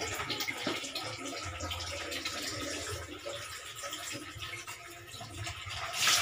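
Water sloshing and splashing in a plastic basin as laundry is washed by hand, with a louder splash about six seconds in as both hands go into the water.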